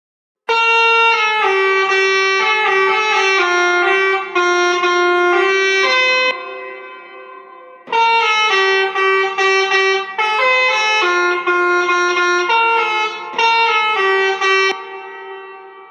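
Basuri telolet musical horn playing a tune of held notes that step from one pitch to the next, in two phrases. Each phrase trails off, with a short pause between them.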